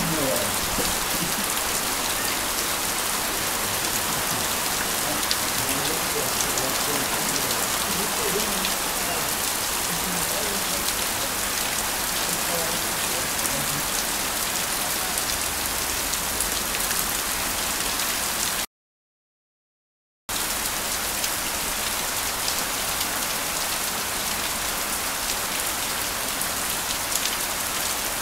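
Heavy rain falling steadily in a dense, even hiss. The sound cuts out completely for about a second and a half past the middle, then resumes unchanged.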